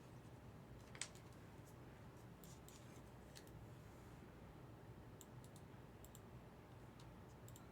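Near silence over a low room hum, with scattered faint, light clicks; one slightly louder click about a second in.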